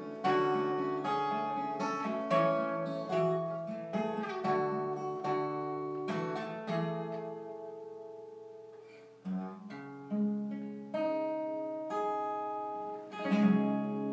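Solo steel-string acoustic guitar playing picked chords that ring one after another. About seven seconds in, a chord is left to fade out, and the playing picks up again a couple of seconds later.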